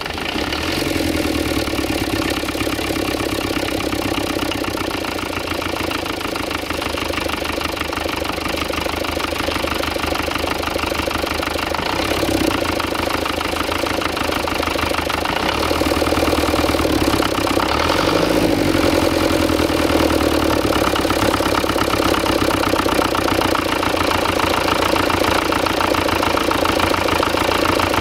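Massey Ferguson 35 tractor's diesel engine idling just after a cold start, with a diesel knock. Its note picks up slightly about twelve seconds in and again around sixteen seconds.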